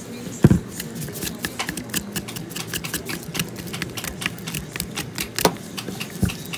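Kitchen knife scraping and picking at a husked coconut's shell, a rapid, irregular run of sharp clicks, with a heavy thump about half a second in and another near the end.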